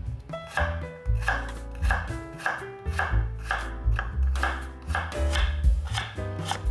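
Knife chopping food on a cutting board in a steady rhythm, just under two cuts a second, each cut a crisp knock.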